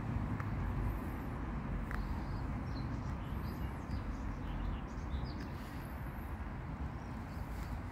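Outdoor ambience: a steady low rumble with faint small bird chirps scattered through the middle.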